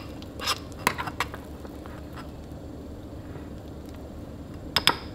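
Metal spoon stirring a thick cream-of-rice and protein mix in a ceramic bowl, clinking against the bowl: a few light clinks in the first second or so, a quieter stretch of stirring, then two sharper clinks close together near the end.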